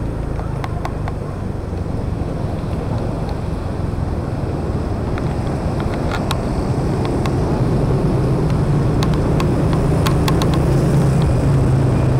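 Motor scooter on the move, its small engine running steadily amid the noise of dense motorbike traffic. The engine hum and traffic grow louder over the last few seconds.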